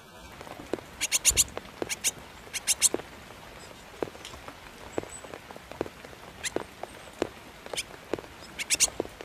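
Sharp clicks and taps, several coming in quick runs of three or four, with single ticks between them.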